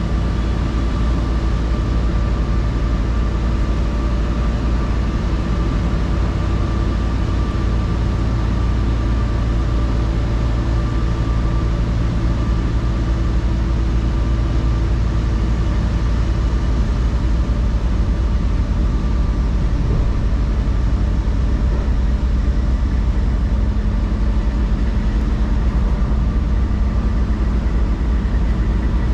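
Peterbilt semi truck's diesel engine running steadily under way, a constant low rumble with a few steady tones over it.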